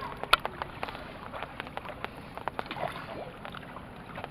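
Water splashing and lapping around a hand-rowed boat on choppy floodwater, with irregular small knocks and clicks; the sharpest knock comes about a third of a second in.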